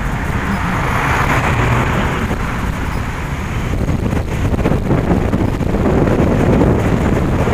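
Wind rushing over a moving microphone, mixed with the engine and tyre noise of a Ford SUV driving a few metres ahead. It grows a little louder toward the end.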